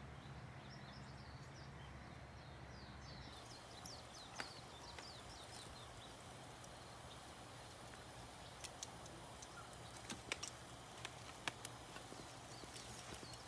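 Faint outdoor ambience of small birds chirping over and over in short falling notes, with scattered sharp clicks that come more often in the second half. A low hum under the first few seconds stops about three seconds in.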